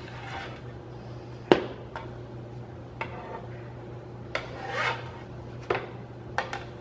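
Hard objects knocking and clinking against each other, about six separate hits with the sharpest about a second and a half in and a brief scrape near the middle, over a steady low hum.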